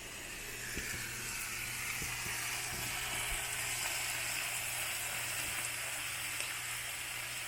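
Breaded pheasant pieces frying in hot oil: a steady sizzle that grows louder over the first two seconds as the pieces take the heat, then holds, with a few small pops.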